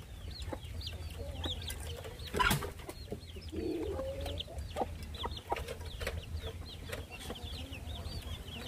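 A brood of chicks peeping steadily in short, high, falling peeps, with a hen giving a few low clucks about midway. One sharp knock sounds about two and a half seconds in.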